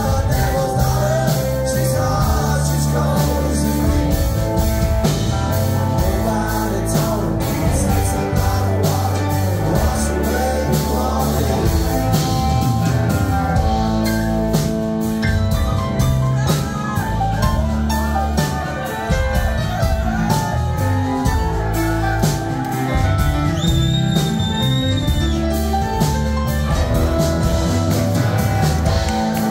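Live rock band playing a song: electric guitars, bass guitar, drum kit and keyboard together with a steady beat.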